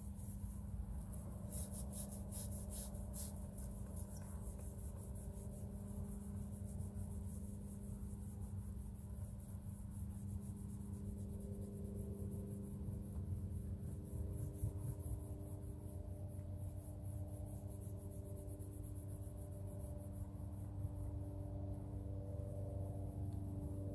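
Soft ambient music of held, bell-like drone tones, with more tones joining about halfway through. Faint scrubbing strokes on a fabric window panel lie underneath.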